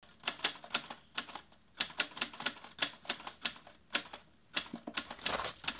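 Typewriter keys clacking in irregular runs of quick strikes with short pauses between. A denser, steadier rustling noise comes in near the end.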